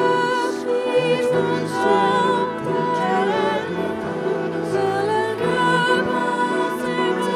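A woman singing slow held notes with a wavering vibrato over sustained instrumental accompaniment.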